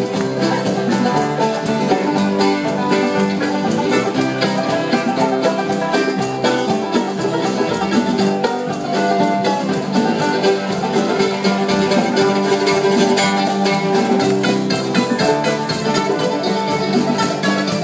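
A folk band playing live: acoustic guitars and other plucked strings over a drum kit, with a steady beat.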